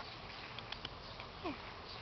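A dog and rabbits moving about: a few light clicks and taps, and a short falling squeak about one and a half seconds in.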